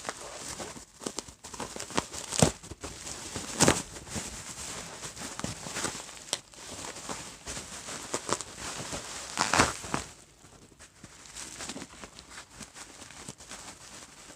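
Packaging being handled while a shipping box of comics is unpacked: irregular crinkling and rustling with sharp crackles, a few louder ones.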